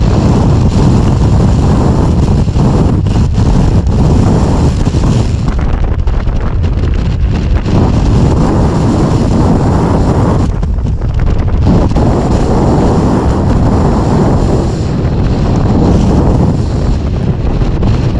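Strong wind buffeting the microphone, a loud low rumble that surges in gusts and drops briefly about ten seconds in.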